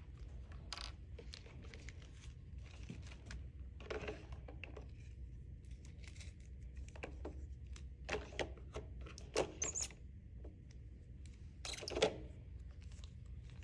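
Blood-draw supplies being handled on a table: scattered light rustles, clicks and knocks of plastic packaging, tubes and a tourniquet being picked up and set down, the loudest near the end. A low steady room hum sits underneath.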